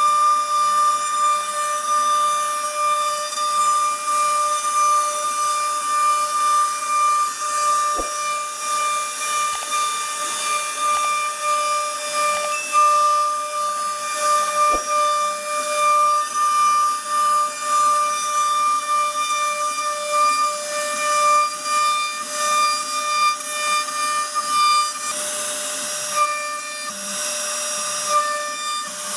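CNC router spindle whining steadily at one high pitch as it carves a wood panel, over a hiss of cutting. Two sharp clicks about a third and halfway through.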